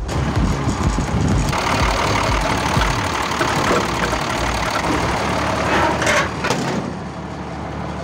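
Engine of a REO 6x6 cargo truck running steadily and loudly.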